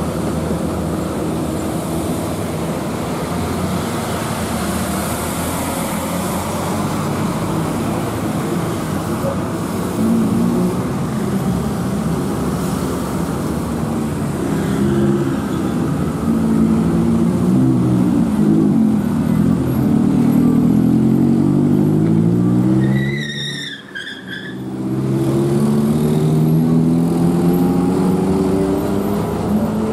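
Cars, a motorcycle and a coach bus pulling up a steep hairpin bend, their engines running hard with the pitch rising again and again as each vehicle climbs the grade. A short high tone sounds about two-thirds of the way through, just before the noise dips for about a second.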